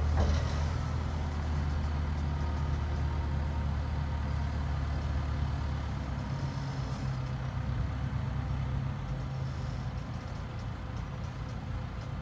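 Telehandler diesel engine running with a steady low hum while its raised bucket tips wood fines into a lorry trailer. There is a brief burst of noise just after the start, and the engine note eases slightly about halfway through.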